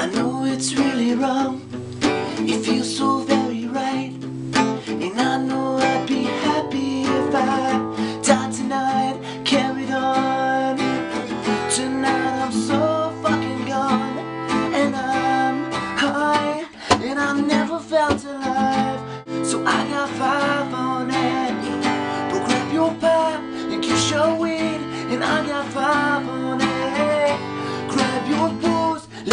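Acoustic guitar played by hand, strummed chords mixed with picked notes in a steady rhythm, with a short break about two-thirds of the way through.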